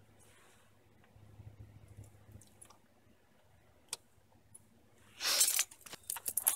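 Faint small clicks from a greased brake caliper pin being handled and worked into a Brembo caliper, then about five seconds in a short, louder scraping clatter of metal tools.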